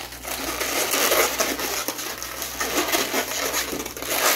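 Long twisting balloons rubbing and squeaking against each other and against hands as they are twisted and bent into shape.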